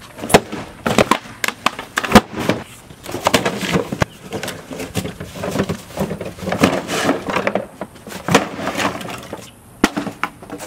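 A boxed home-theatre speaker set being thrown and smashed again and again on a concrete driveway: a run of irregular, loud crashes and cracks of breaking speaker casings and battered cardboard, the sharpest about two seconds in and near the end.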